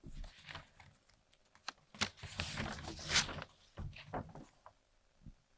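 Sheets of paper being shuffled and turned over close to a handheld microphone: irregular crackly rustles, densest about two to three seconds in.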